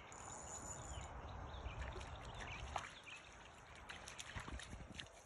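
Faint outdoor ambience: wind rumbling on the microphone, heaviest in the first few seconds, with a few scattered light clicks.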